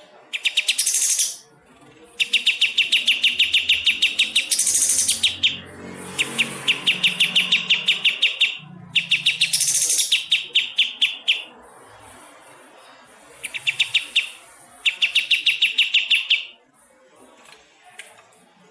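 Kapas tembak songbird giving its rapid 'besetan' call: six bursts of fast, evenly pulsed notes, each lasting from about one to three seconds, separated by short pauses.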